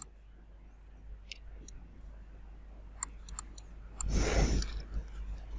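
Computer mouse buttons clicking, a handful of separate sharp clicks, with a short rush of noise about four seconds in.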